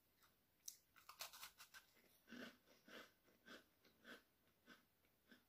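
Faint biting and chewing of a crisp biscuit. A few sharp crunches come about a second in, then steady chewing at about two chews a second.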